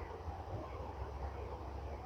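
Steady outdoor ambience: a low, uneven rumble under an even hiss, with no distinct events.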